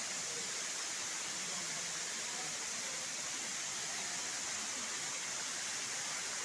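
Waterfall: a steady hiss of rushing, falling water.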